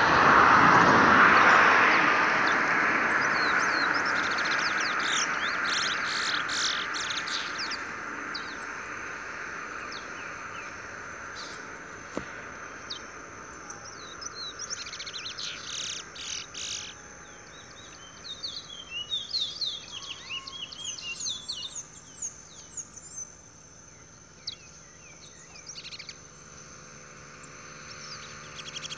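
Caged towa-towa seed finches singing in a head-to-head song match, in bursts of quick high chirps and fast trills, over a steady thin insect-like drone. A loud rushing noise at the start fades away over the first several seconds.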